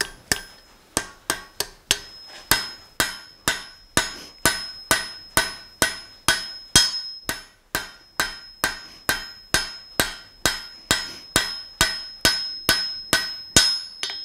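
Hand hammer striking red-hot steel on an anvil in a steady rhythm of two to three blows a second, each blow leaving a bright high ring, as a flat hook blank is forged and its edges beveled. The hammering stops near the end.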